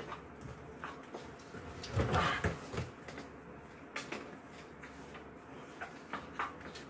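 A spoon scraping and clicking against a frying pan as rice and vegetables are mixed. About two seconds in there is a louder thump and rustle.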